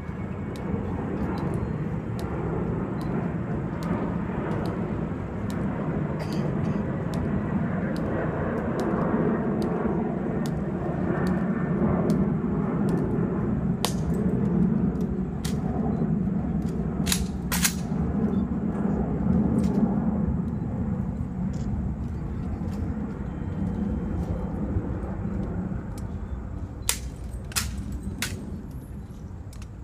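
Jet aircraft passing overhead, a steady rumble that swells toward the middle and fades near the end. Several sharp clicks cut through it after the middle and again near the end.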